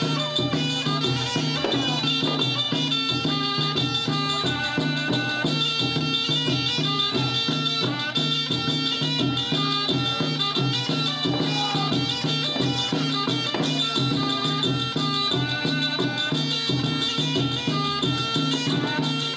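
Traditional Khmer ensemble music: a reedy wind instrument plays a melody over a steady, driving drum rhythm.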